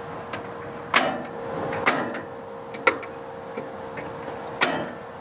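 Three-burner Suburban Elite series gas stove being lit: four sharp igniter clicks about a second apart as the burners are turned on, with a faint steady tone beneath.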